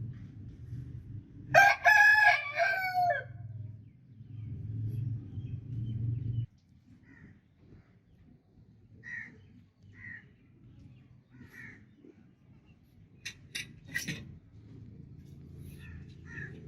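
A rooster crows once, a single loud call of under two seconds about a second and a half in. A low steady rumble underneath cuts off suddenly about six and a half seconds in; after that come a few short faint chirps and a quick cluster of sharp clicks near the end.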